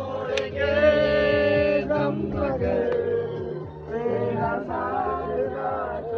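Singing with musical accompaniment: a song's voice line holds one long note about a second in, then goes on in shorter phrases.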